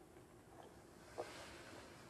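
Near silence: faint background hiss, with one short soft click about a second in.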